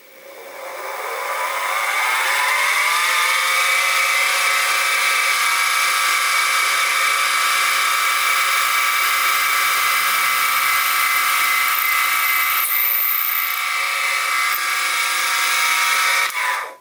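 Sieg SX2P mini mill spindle motor running while a drill bit bores a 1/8 inch hole through a small brass rod: a whine that rises in pitch as the spindle spins up over the first couple of seconds, holds steady, then winds down quickly as it is switched off near the end.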